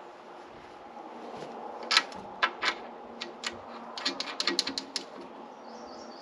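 A wrench clicking on a steel hydraulic hose fitting as an auxiliary-line coupler adapter is tightened. There are a few sharp metallic clicks about half a second apart, then a quick run of clicks for about a second.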